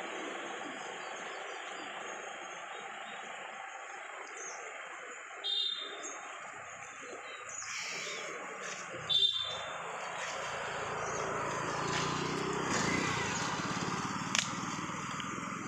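Street ambience: a steady hiss of outdoor noise with two short high chirps about five and nine seconds in. Near the end a motorcycle engine passes close by, with a brief sharp click.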